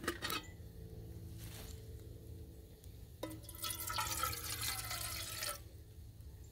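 Water poured into an open camping kettle for about two seconds, splashing against the bottom, just after a light knock.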